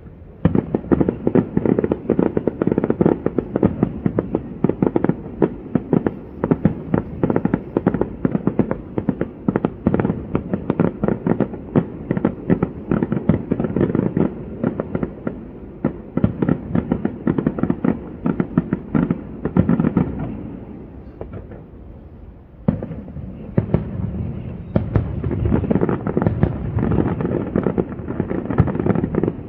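Fireworks display: a dense barrage of rapid crackling reports and bangs. It thins into a quieter lull around twenty seconds in, then a sudden sharp bang sets off the barrage again.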